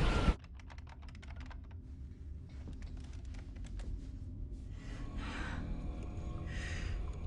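Rapid clicking of keys on a control console, quick at first and then sparser, over a steady low machinery hum. Two short hisses come near the end.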